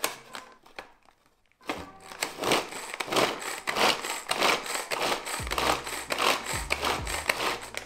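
Pull-cord manual food chopper with six blades chopping carrot pieces: the cord is pulled again and again, about two to three strokes a second, each spin whirring the blades through the carrots against the plastic bowl. It starts after a short pause.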